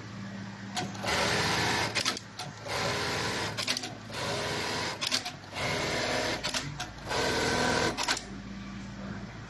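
JK-1900D computerized bartack sewing machine stitching in about four short runs of a second or so each, with sharp clicks in the gaps between runs.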